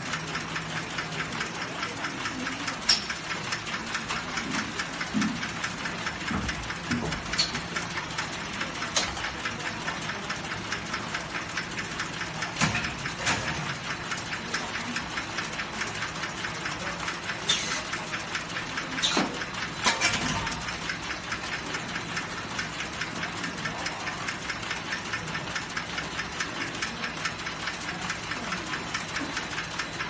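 Automatic compressor-shell welding machine running: a steady, fast mechanical chatter over a low hum, with several sharp clanks as its fixtures move and clamp the steel compressor shell.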